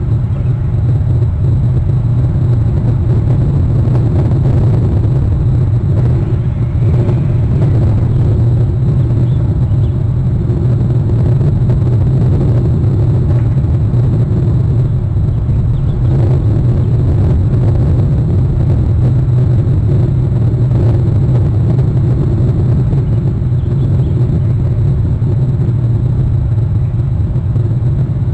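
Steady, loud low rumble with no distinct events and no bird calls.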